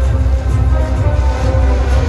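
Loud soundtrack music of a water, fireworks and laser show, with a heavy bass and held tones.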